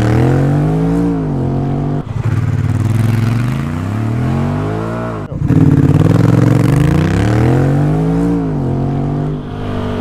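Honda Rebel 1100's parallel-twin engine accelerating hard from a standstill at about half throttle, its pitch climbing and then dropping at an upshift. The run is heard three times back to back with sudden cuts between them, including one on the stock Honda exhaust and one on a Coffman's Shorty slip-on muffler.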